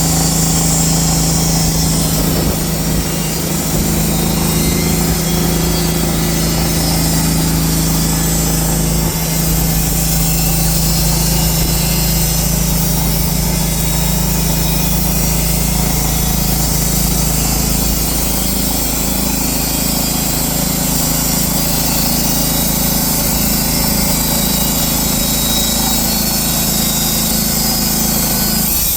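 TrakMet TTP 600 Premium mobile sawmill running steadily while cutting a large log. Its engine note shifts slightly in pitch about nine seconds in and again around eighteen seconds.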